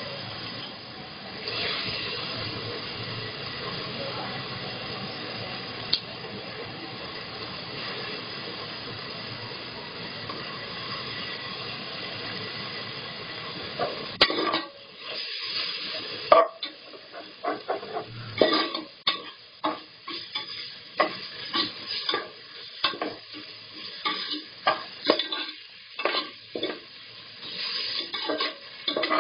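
Onions and ginger-garlic paste sizzling in hot oil in a pressure cooker pan. From about halfway, a metal spoon stirs the mixture, with repeated clicks and scrapes against the pot over the sizzle.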